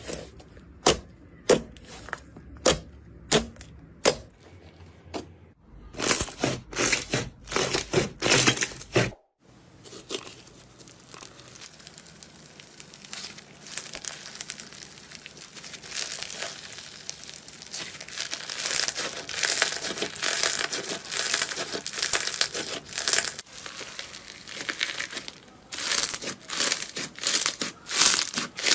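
Slime being handled close to the microphone in a series of clips: first sharp separate taps, then bursts of crackling, then a long dense crinkly crackle, typical of crunchy slime being pressed and squeezed. The sound breaks off abruptly a little over nine seconds in and changes character at each cut.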